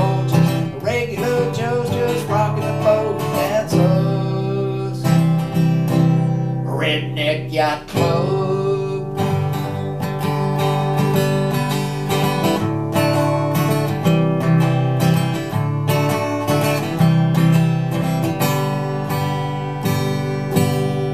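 Epiphone Masterbilt DR-500 dreadnought acoustic guitar strummed in a steady country rhythm.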